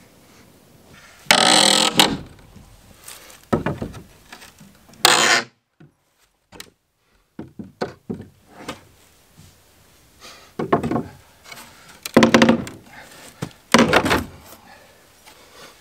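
Wooden boards being pried off a shed wall with a crowbar: a series of loud wooden thunks and knocks at irregular intervals, with a pause in the middle.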